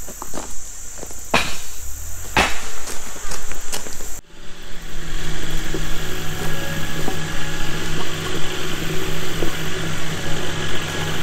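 Footsteps on gravel and two sharp knocks of lumber being handled, with insects chirping steadily. About four seconds in, the sound cuts off abruptly and gives way to a steady low hum.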